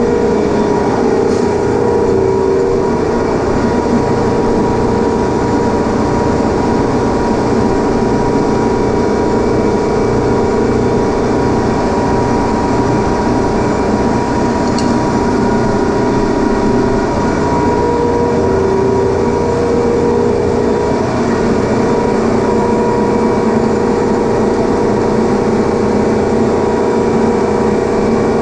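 Steady, loud machinery drone with a constant hum, like running compressors or motors in a refrigeration machine room.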